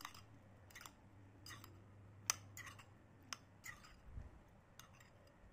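A metal spoon clinking and scraping faintly against a ceramic bowl as pieces of pempek are stirred in their sauce: about eight short, irregular clicks and brief scrapes.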